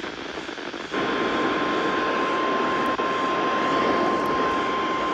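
A NOAA Weather Radio warning alarm comes on about a second in: a single steady 1050 Hz tone over hissing radio static, held unbroken. It is the alert signal that comes before a warning message is broadcast.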